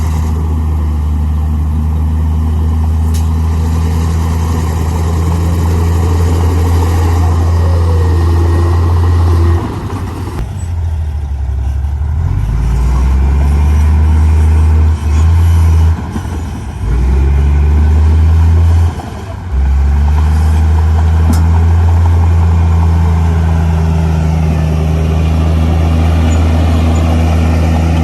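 Heavy diesel engine of earthmoving machinery running steadily under load, with a deep, even drone; the level drops suddenly for a moment a few times midway.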